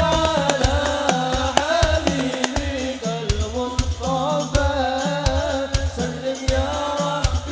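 Sholawat music from a hadroh group: a wavering melody over hand-drum percussion, with deep drum beats falling at a regular pulse.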